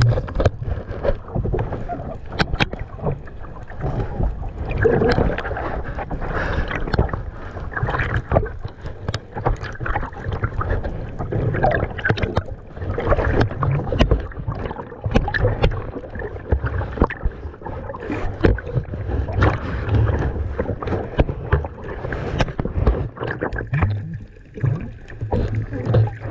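Water sloshing and gurgling around a camera dipping in and out of the sea surface, with irregular knocks and bumps and low rumbling; underwater stretches sound muffled.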